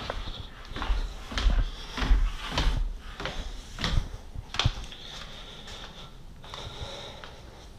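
Handling noise from a hand-held camera being swung around: an irregular run of clicks, knocks and low rubbing thumps, busiest in the first few seconds, with one sharp click in the middle.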